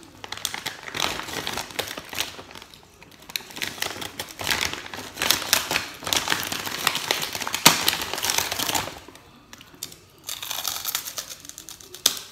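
Thin clear plastic bag crinkling in irregular stretches as a hand rummages in it and pulls out puffed crackers, with a short lull about two-thirds through and a sharp crunch near the end as a cracker is bitten.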